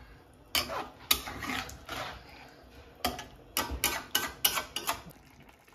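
Metal spatula scraping and clacking against a steel frying pan as pieces of chicken are stirred, in irregular strokes with a quick run of clacks between about three and five seconds in.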